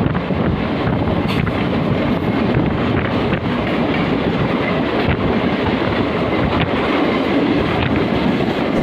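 Moving train running steadily on the rails, heard from its open door: a continuous rumble of wheels on track with clickety-clack and wind rush.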